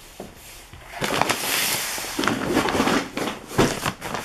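Brown paper bag rustling and crinkling as it is handled, starting about a second in, with many sharp crackles.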